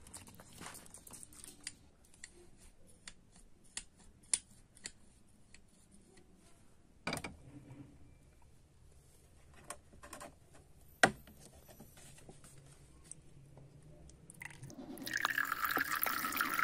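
Scattered light clicks and knocks of rusty iron pincers being handled and set in a plastic bowl, the sharpest about seven and eleven seconds in. About fifteen seconds in, vinegar is poured from a bottle into the bowl over the pincers, splashing.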